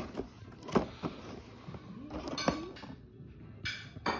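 Cardboard toy packaging being handled and pulled open, with a few sharp knocks and rustles.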